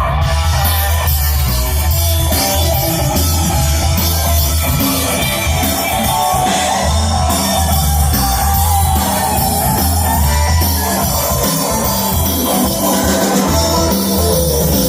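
Loud rock music with drum kit, heavy bass and electric guitar, played without a break.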